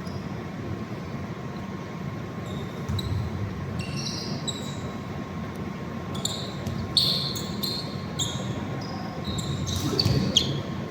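Basketball shoes squeaking on a hardwood court in short, high chirps, many of them in the second half, over the steady rumble of a large indoor hall.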